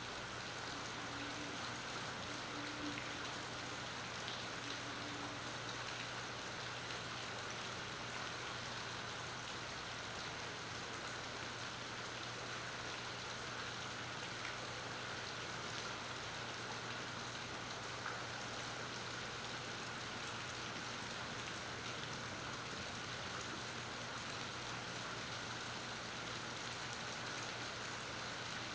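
Steady rain falling on the marina's water and docks: an even, unbroken hiss. A low steady hum runs underneath. It is picked up by a phone's built-in microphone.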